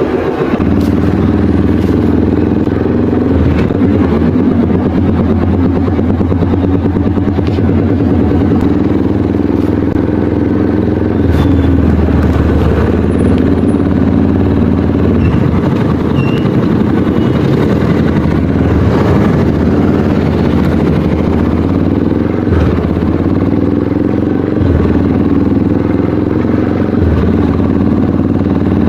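Motorcycle engine running loudly and steadily through an aftermarket exhaust, settling at idle with its pitch shifting slightly several times.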